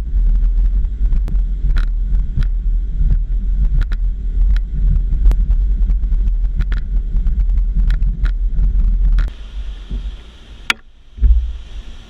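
Aluminum boat running at speed under outboard power: a loud, steady low rumble of motor and hull with wind on the microphone, peppered with sharp knocks as the hull slaps the water. About nine seconds in it cuts to a much quieter rush of water, with a single knock near the end.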